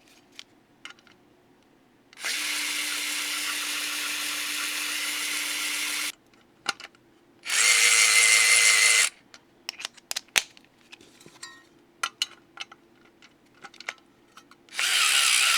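Small cordless electric screwdriver motor running with a steady whine, three times: once for about four seconds, then twice more briefly and louder near the middle and the end. Small clicks of handling and bits between runs.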